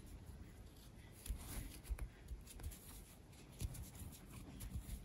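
Faint rustling of yarn and a metal crochet hook being worked through stitches, with a few soft ticks and light thuds as the hands move.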